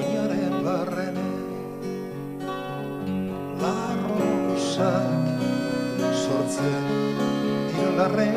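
Slow live song on acoustic guitar and keyboard, the guitar strummed under sustained chords, with a wavering vibrato melody line coming in and out over it.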